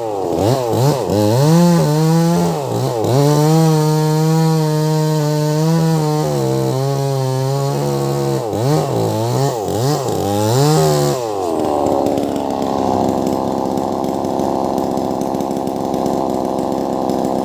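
Wagner 580 chainsaw with a 24-inch bar, its throttle opened and eased off again and again so the engine note swings up and down. About eleven seconds in it settles into a steadier, rougher drone.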